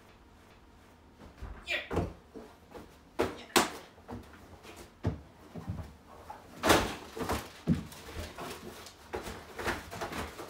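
Thuds, bumps and rustling of a person scrambling over a couch and across the floor behind a desk: a run of knocks of varying strength starting about a second in, the loudest near 3.5 s and near 6.7 s.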